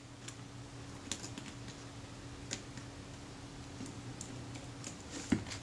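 Faint, scattered light clicks and taps of a small screwdriver and screw on the metal mechanism plate of a Kodak Retina IIIS shutter as a screw is taken out, about one every second, the sharpest near the end, over a faint steady hum.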